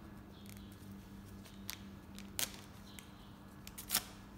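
Gloved hands handling a syringe, making a few short sharp clicks and crackles, the loudest near the end, over a faint steady hum.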